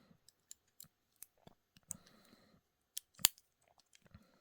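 Swiss Army knife clone being handled, its stainless steel fold-out tools clicking as they are worked open and shut: scattered small clicks, with a sharper snap a little over three seconds in.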